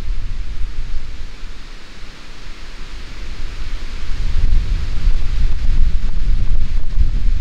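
Wind gusting against the microphone: a heavy rumble that eases about two seconds in and then builds again, over a steady rush of wind.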